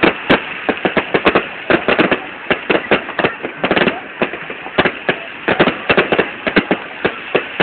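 Fireworks bursting in a rapid, irregular barrage of sharp bangs, several a second.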